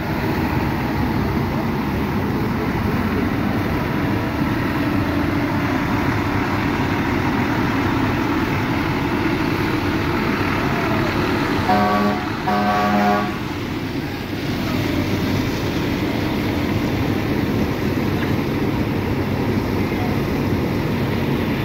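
Fire apparatus running with a steady rushing noise, broken by two short blasts of a truck horn about a second apart, twelve and thirteen seconds in.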